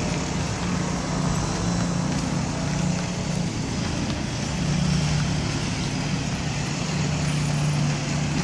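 Steady low hum of an idling motor vehicle engine over general street noise, its pitch settling slightly lower about halfway through.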